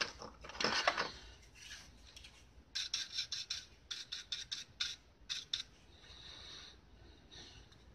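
Hands handling the opened plastic case of a cheap voltage meter, making a series of short, irregular rubbing and scraping sounds.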